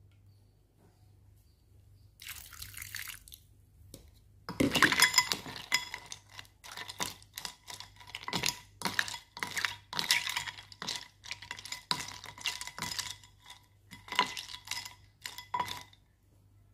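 Ice cubes clinking against a glass bowl, with water sloshing, as boiled shrimp are stirred in an ice-water bath with a wooden spatula. After a short swish about two seconds in, a dense run of ringing clinks starts about four and a half seconds in and goes on until near the end.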